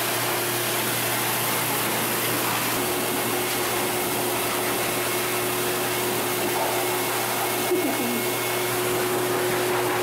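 Blower of a self-serve dog wash station, drying a wet puppy: a steady rush of air with a low motor hum.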